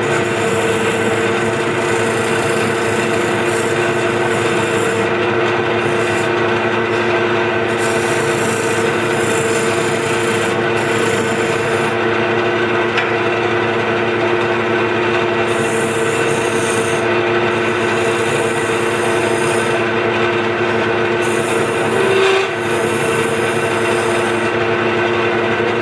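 Wood lathe running steadily with a turning chisel scraping and cutting the spinning wooden blank. The high scraping comes and goes as the tool is pressed to the wood and eased off, over the lathe's steady hum.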